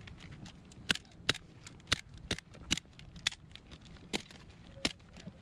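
A series of sharp, irregularly spaced clicks, about eight in five seconds, from hand tools working the vinyl cover of a jet ski seat during re-upholstery.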